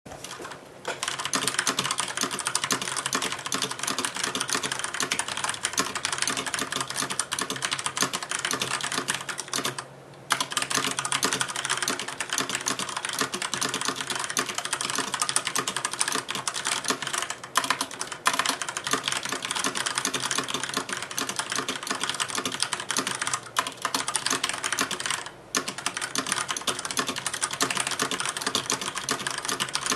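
Fast continuous typing on a Filco Majestouch 2 mechanical keyboard with Cherry MX Brown switches: a dense clatter of key clicks as the keys bottom out, with brief pauses about a third of the way in, a little past halfway, and again later.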